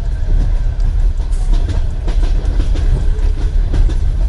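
Russian Railways passenger carriage in motion, heard from inside: a steady low rumble with the clickety-clack of the wheels knocking over the rail joints.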